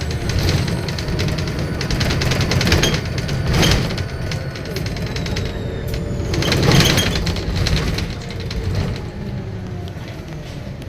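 Volvo B7RLE bus diesel engine and ZF automatic gearbox on the move, with a turbo whistle and gearbox whine gliding up and down in pitch. Two louder rattly surges come about a third of the way in and again about two thirds in.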